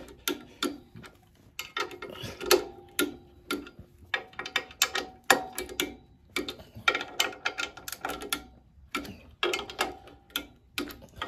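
Ratchet of a torque wrench clicking in several short runs of quick clicks, with pauses between, as the clutch pressure-plate bolts are tightened.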